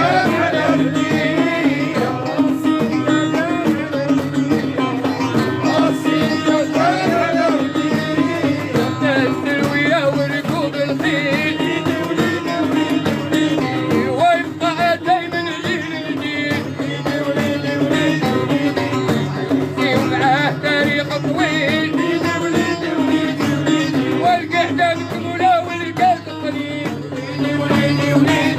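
Music with a singing voice over instrumental accompaniment, playing continuously at a steady loud level.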